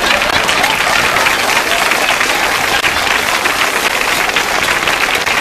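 A studio audience applauding, many hands clapping together.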